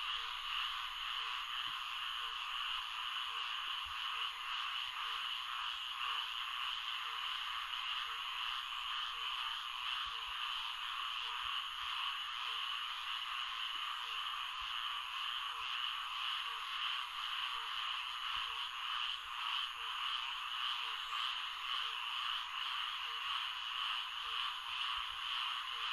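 Recorded Florida swamp ambience: a dense, steady chorus of frogs, with a faint low call repeating at an even pace beneath it.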